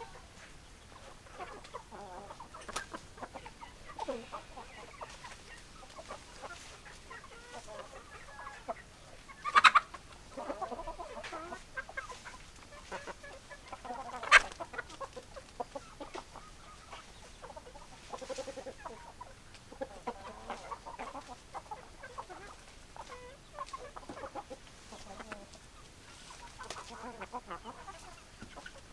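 Hens clucking, with many short, irregular calls overlapping. Two loud, sharp sounds stand out, one about ten seconds in and another about four seconds later.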